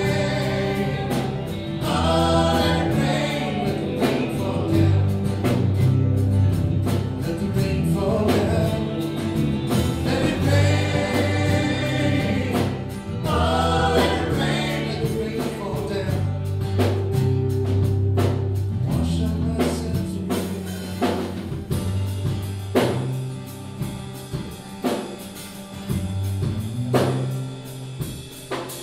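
Live band playing a song with lead and backing group vocals over bass, electric and acoustic guitars and drums. About two-thirds of the way through, the singing thins out and the drums and bass come forward.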